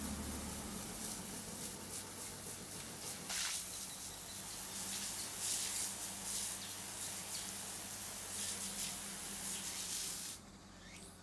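Water spraying from a garden hose nozzle onto a tiled floor: a steady hiss and splash that cuts off near the end.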